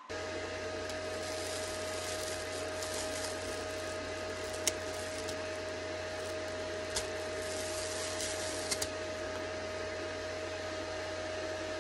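At-home cryolipolysis fat-freeze machine running with a steady whir, a low hum and a mid-pitched tone. A few brief sharp clicks come in the middle.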